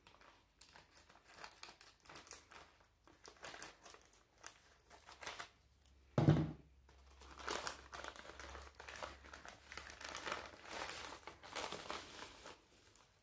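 Scissors snipping open a plastic poly mailer, with the plastic crinkling. A thump about six seconds in, then steady crinkling and rustling as a bubble-wrapped box is slid out of the mailer.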